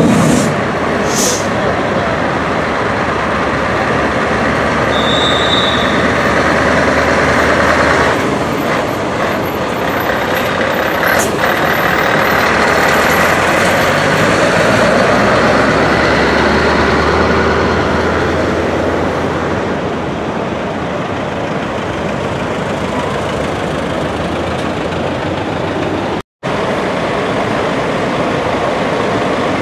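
Heavy truck diesel engines running as articulated lorries pull past at low speed, a steady engine hum under road and rolling noise, with a brief air hiss about a second in.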